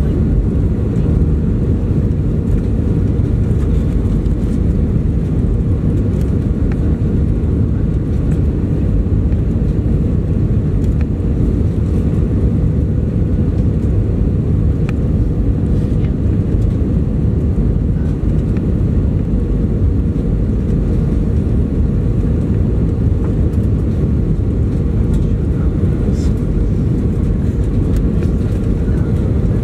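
Steady roar of engine and airflow noise inside the cabin of an Airbus A320 on final approach, heard from a window seat over the wing, with a faint steady whine above it.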